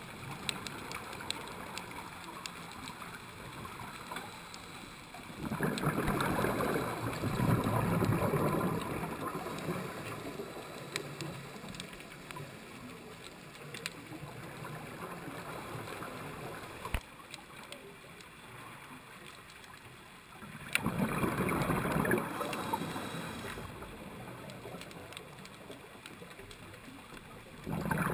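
Scuba diver's regulator exhaust heard underwater: exhaled bubbles rush out in loud spells about five seconds in, again about twenty seconds in, and just at the end. Between the spells there is a quieter steady underwater hiss with a few sharp clicks.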